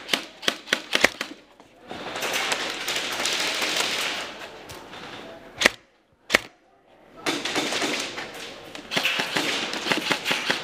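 Airsoft guns firing: a quick run of sharp shots in the first second or so, two single cracks in the middle, and more scattered shots near the end. A noisy background of voices and movement fills the gaps.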